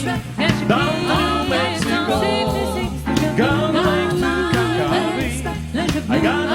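Jazz vocal group singing a wordless passage, several voices together, over a band with walking bass and drums.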